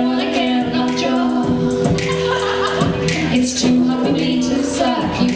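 Two women singing a cappella in harmony, holding long notes.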